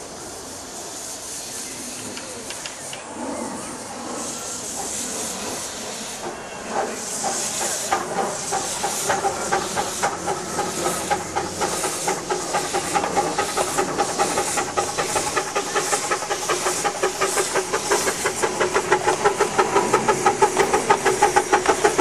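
7¼ in gauge steam locomotive No. 5 Sapper pulling away with a passenger train. Steam hisses, then from about six seconds in its exhaust beats start up and grow louder and quicker as it gathers speed and comes closer.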